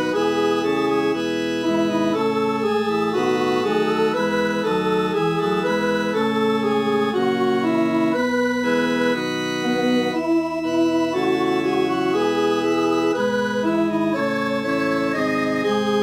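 NoteWorthy Composer MIDI playback of a four-part Christmas choral piece in an organ-like synthesized sound, made as a soprano-part practice track. Several held notes change together in chords, with a wavering line on top.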